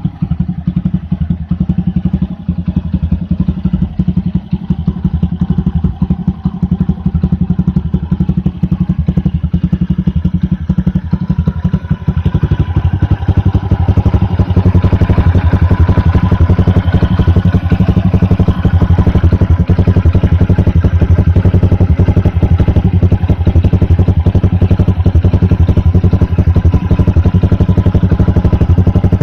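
Honda Super Cub 90's single-cylinder four-stroke engine running through a Moriwaki titanium Monster muffler, with a rapid, even exhaust beat. Partway through, it gets louder and steadier as the engine is brought up in revs.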